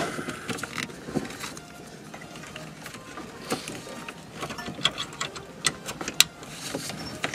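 Plastic wiring-harness connectors being handled and plugged into the back of a car stereo unit: rustling of the loom with scattered sharp plastic clicks, most of them bunched in the second half.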